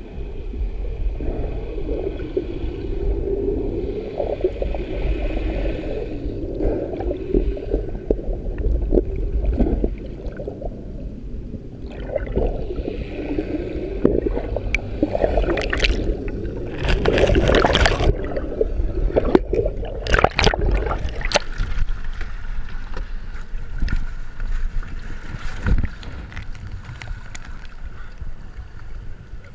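Water gurgling around a camera held underwater, then several loud splashes about halfway through as a diver surfaces and climbs out at the boat's stern beside the outboard motors.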